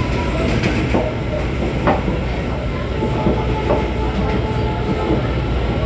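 Diesel VLT light-rail railcar running along the track, heard from inside the passenger car: a steady low rumble with irregular sharp clicks from the wheels.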